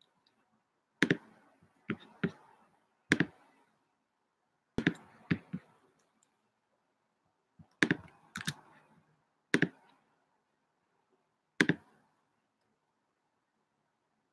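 About a dozen sharp computer clicks at uneven intervals, some in quick pairs, like a mouse or keys being pressed now and then.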